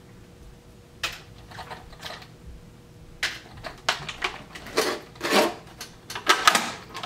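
Handling of the RC truck's box and packaging: irregular clicks, knocks and rustles, starting about a second in and coming thicker toward the end.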